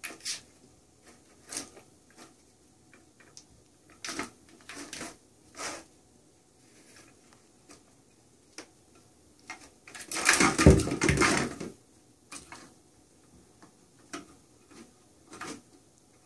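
Cats' paws batting and knocking at a round red plastic cat toy: a scattered run of sharp clicks and taps, with a longer, louder clatter about ten seconds in.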